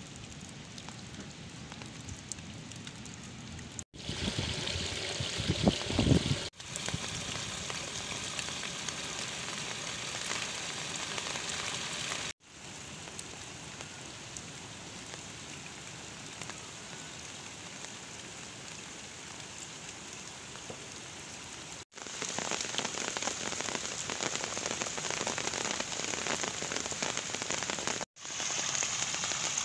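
Heavy rain falling steadily on flooded rice paddies and leaves, a constant hiss of drops on water. The sound cuts abruptly several times between takes, and a louder stretch about four to six seconds in carries a low rumble.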